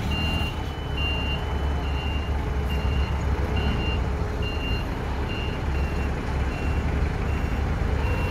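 Cat forklift's reverse alarm beeping steadily, a little more than once a second, as the forklift backs up, over the low rumble of its engine.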